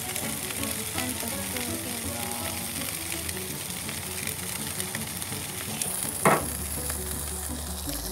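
Burger patties sizzling on a grill mat over a hot grill, a steady frying hiss. One sharp knock about six seconds in.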